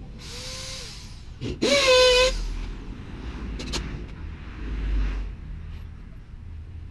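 Power drill running in short bursts while fixing plywood over a window. The loudest, about a second and a half in, spins up with a quickly rising whine and holds for under a second, with a few sharp knocks around it.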